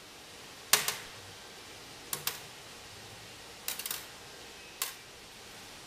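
Small steel fasteners (a bolt, washers and a nylon lock nut) clicking as they are handled and set down on a stainless steel workbench. One sharp click a little under a second in, a pair around two seconds, a short rattle of several clicks near four seconds and one last click near five.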